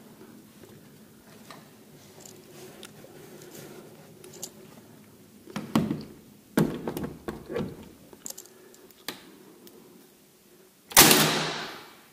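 Cordless finish nailer firing a nail into door casing: one loud, sharp shot about eleven seconds in, after a few lighter knocks and clatter from handling the tool and trim.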